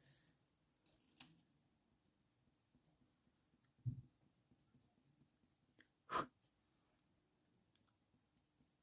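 Near silence: faint colour-pencil work on paper, with very light strokes. There are a few brief soft sounds: a small click about a second in, a low bump about four seconds in, and a short louder scrape or tap about six seconds in.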